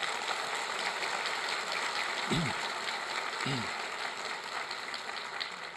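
Audience applauding steadily, with two brief calls from a voice about two and three and a half seconds in.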